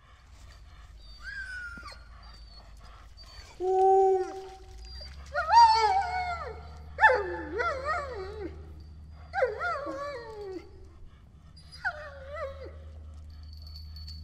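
Huskies (sled dogs) howling and whining: a string of drawn-out calls that bend and fall in pitch, several overlapping, the loudest a few seconds in. A low steady hum runs underneath from about a third of the way through.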